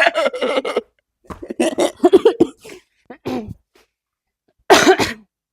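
Short bursts of a person's voice with silent gaps between them, and a sharper burst about four and a half seconds in.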